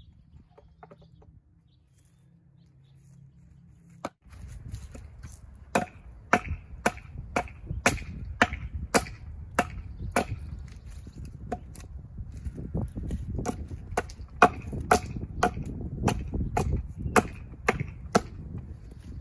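Hatchet chopping into a cedar slab, knocking out the blocks left between chainsaw kerfs: a steady run of sharp wooden chops, about two a second, starting about four seconds in.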